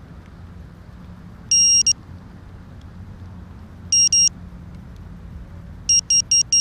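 Electronic beeping from a Diatone GT200S quadcopter: a quick group of beeps about a second and a half in, another short group just after four seconds, then fast regular beeping, about five a second, starting near the end.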